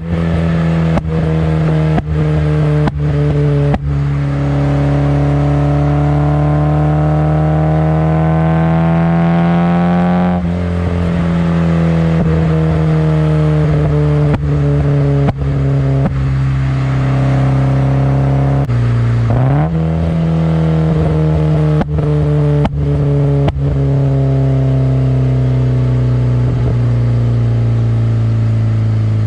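Nissan KA24DE 2.4-litre inline-four running through ISR 4-2-1 headers, a test pipe in place of the catalytic converter and an HKS Hi-Power exhaust. The engine note climbs slowly under load, eases off, drops and snaps back up once, then falls slowly, with sharp cracks now and then.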